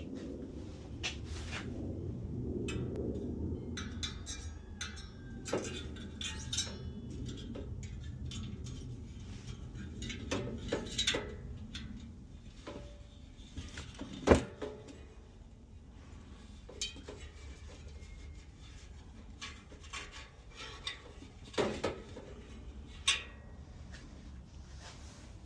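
Scattered light metallic clinks and clicks of a bicycle wheel's steel spokes and small parts being handled while a replacement spoke is fitted, with one sharper click about fourteen seconds in.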